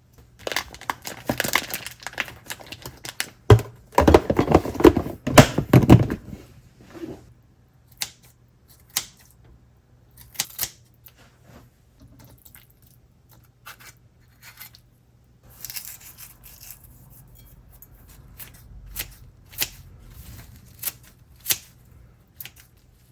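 Kitchen handling sounds: several seconds of noisy tearing or rustling, then scattered light clicks and taps.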